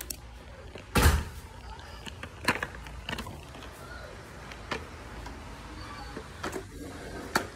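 A loud bump about a second in, then several lighter knocks and clicks: handling noise from a phone being moved about in the hand.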